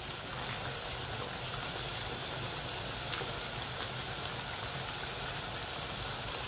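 Plantain slices deep-frying in hot oil in a frying pan: a steady sizzle, with a spatula moving through the slices.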